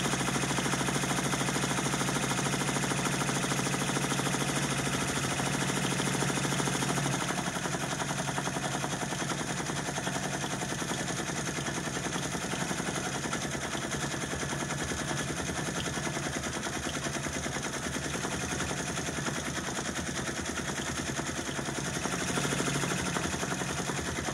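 Multi-needle embroidery machine stitching at speed: a steady, rapid chatter of the needle going up and down through the fabric. The stitching rhythm changes slightly about seven seconds in.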